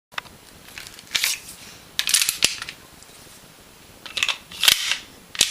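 KWA Glock 17 gas blowback airsoft pistol firing single shots at irregular intervals. Each shot is a sharp crack with a short hiss of gas.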